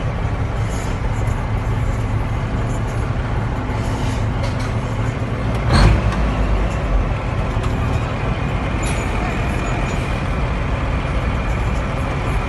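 Straight-piped Cummins diesel truck engine running steadily with a low, even sound, heard from inside the cab. A short, loud burst of noise comes about halfway through.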